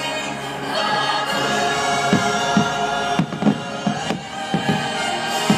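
Choral music with sustained choir voices, over the thuds of aerial firework shells bursting, several in quick succession in the second half.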